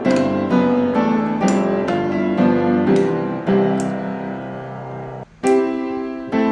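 Background piano music: a melody of single notes and chords that breaks off briefly about five seconds in, then starts again.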